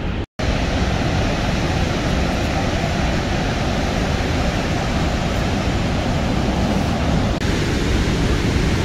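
Steady roar of Niagara Falls' water heard up close, with a brief total dropout just after the start.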